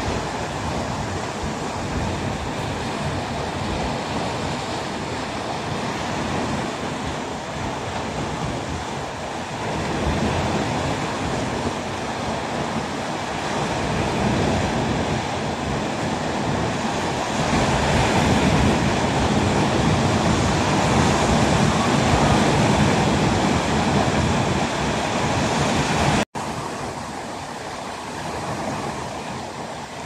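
Calm sea surf, a steady rush of waves mixed with wind on the microphone. It swells louder for several seconds past the middle, and the sound cuts out for an instant near the end.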